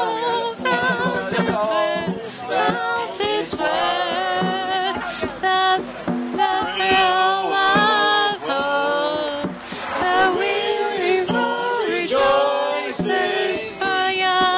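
A small group of young voices singing together unaccompanied.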